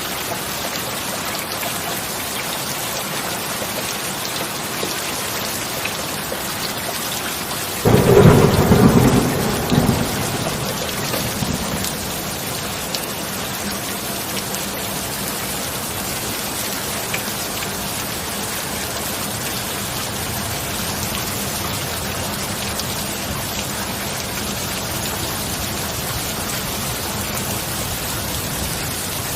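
Steady heavy rainfall with a single sudden thunderclap about eight seconds in, rumbling away over the next few seconds before the rain carries on alone.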